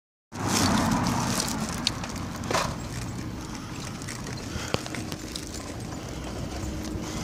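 A bicycle riding over a paved road: steady tyre rumble mixed with wind on the microphone, with a few sharp clicks and rattles from the bike.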